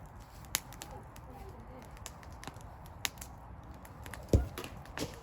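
Wood fire crackling, with scattered sharp snaps and pops, and one louder low thump a little over four seconds in.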